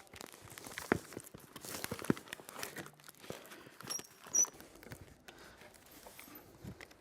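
Handling noise as a flue pipe is pushed through the flexible collar of a Wakaflex Uni outlet: scattered light knocks and rustling, with a couple of brief high squeaks about four seconds in.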